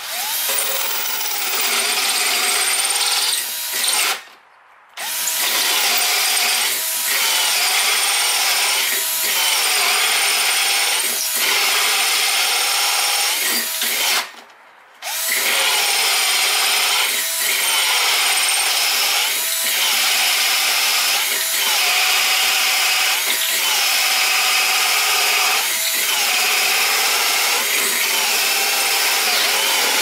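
Milwaukee M12 cordless drill running a hole saw through a wooden block, the motor held under steady load and the cut wavering in a regular rhythm about once a second. The drill stops briefly twice, about four and fourteen seconds in.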